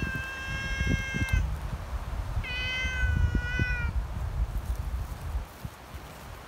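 A cat meowing twice, two long, high, fairly even meows about a second apart, each lasting about a second and a half. A low rumble runs underneath.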